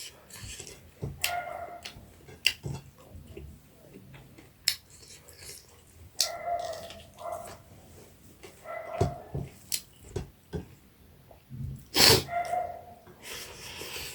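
Close-up eating sounds: wet slurping and lip-smacking as fish with soup and rice is eaten, with short pitched slurps repeating every second or few. A louder sharp slurp comes about 12 seconds in.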